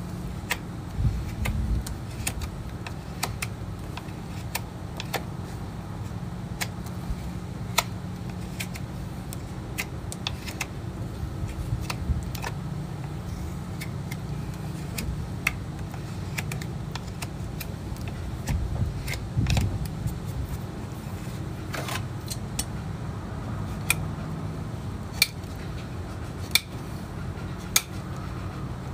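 Crisp clicks and snaps of farrier's tools cutting and paring hoof horn, irregular, about one or two a second, over a steady low hum.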